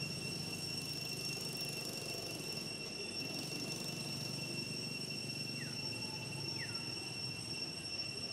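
Steady high-pitched insect drone, a single unbroken tone. Two short, falling chirps come a little after halfway.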